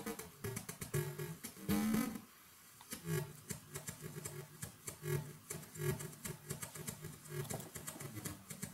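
Homemade aleatoric drum machine playing a loose electronic beat of short clicks and low pitched hits at uneven spacing. About two seconds in, a tone glides in pitch, followed by a short pause before the hits resume.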